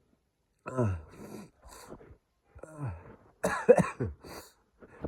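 A person sneezing several times in quick succession during an allergy sneezing fit, with short breaths between. The loudest sneeze comes about three and a half seconds in.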